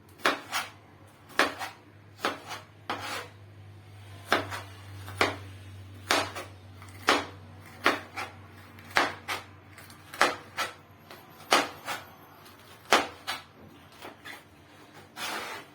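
Kitchen knife slicing green bell pepper into long strips on a cutting board: sharp, uneven knocks of the blade hitting the board, about one or two a second. The cook finds the knife blunt.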